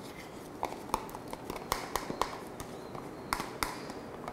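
Metal spoon clinking against a plastic cup and a stainless steel mixing bowl as an egg yolk is scraped out into the dough: a dozen or so irregular light clinks, some ringing briefly.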